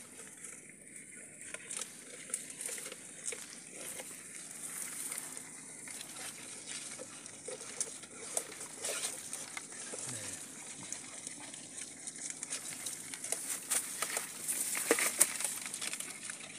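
Scattered clicks and crinkling rustles of close handling work, with a plastic bottle crab trap being set into a burrow among dry grass. The clicks come thicker and louder near the end.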